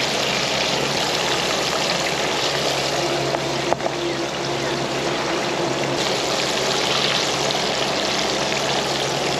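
Battered bream frying in hot oil: a steady sizzle flecked with small crackles, with a faint low steady hum underneath.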